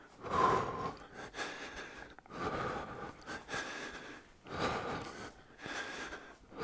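A man breathing hard while jogging in place, one heavy breath roughly every second, out of breath from the warm-up.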